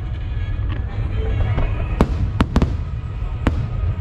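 Fireworks display: shells bursting with sharp bangs, a cluster of them from about two seconds in, over a steady low rumble, with music playing in the background.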